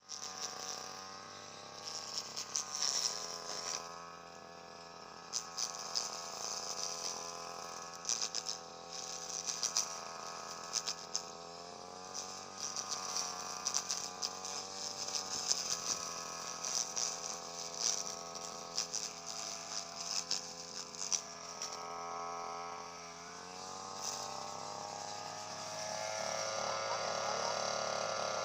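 Motor of a grass-cutting machine running steadily, its pitch dipping and recovering a few times, with scattered clicks. A scratchy rattle joins near the end.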